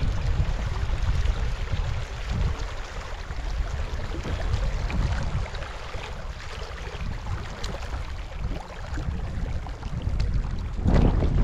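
Wind buffeting the microphone, a steady low rumble that gusts louder near the end.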